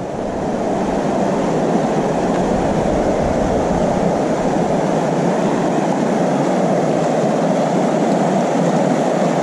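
Steady rumbling wind and road noise of a Honda Cross Cub on the move, with no clear engine note standing out.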